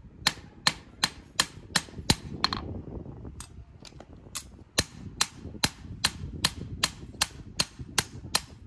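Hand hammer striking a steel knife blade, forged from an aircraft bolt, on a small round anvil: sharp ringing blows at about two to three a second as the blade's faces are hammered flat by hand. The blows pause briefly a few seconds in, then resume at the same pace.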